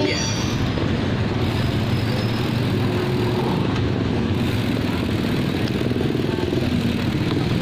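Steady street and road noise from a slow-moving ride behind a car, a low rumble without clear tones.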